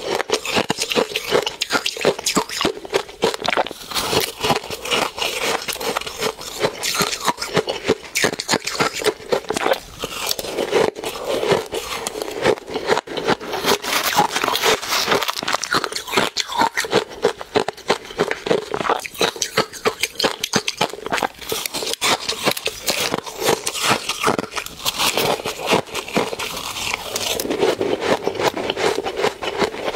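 Close-miked crunching and chewing of soft, snowy shaved ice dusted with matcha powder: a dense, rapid crackle of bites that does not let up. A metal spoon scrapes and scoops ice in a plastic tub between mouthfuls.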